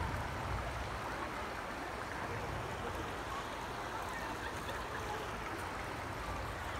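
Shallow rocky stream flowing: a steady rush and trickle of water over stones.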